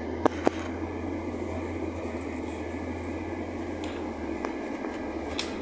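Steady engine hum and running noise inside a moving bus, with two sharp clicks about a quarter and half a second in.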